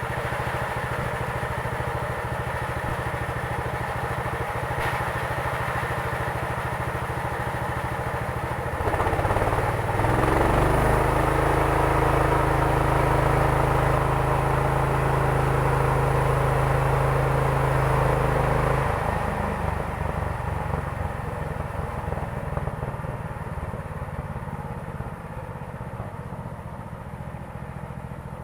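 Engine of a home-built sawmill running during a test run. It runs steadily, speeds up and gets louder at about nine seconds, holds there for about ten seconds, then drops back to idle and gradually quietens.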